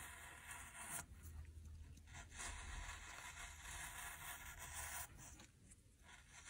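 Razor blade scraping through a frozen, frost-covered cherry, a crisp rasping in long slicing strokes, with brief pauses about a second in and about five seconds in.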